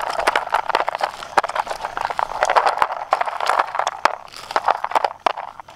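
Quick, irregular clicking and crackling of small items being handled, many sharp clicks a second.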